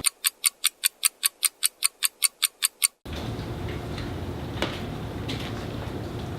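Clock-ticking sound effect, about five quick, sharp ticks a second for three seconds, then cutting off abruptly to room tone. It works as the cue for time rewinding after the sneeze.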